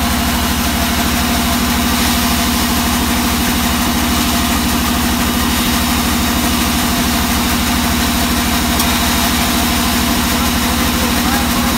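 Band sawmill's engine running steadily at idle, with a rapid, even low pulsing and a steady hum, while the blade turns without cutting.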